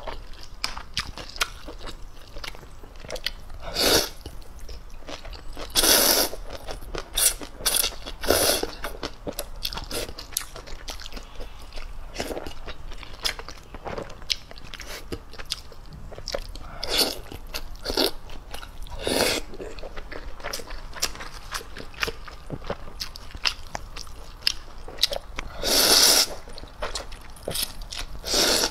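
Close-miked eating of instant ramen noodles: steady wet chewing and mouth clicks, broken by several loud noodle slurps of about a second each. The longest slurp comes near the end.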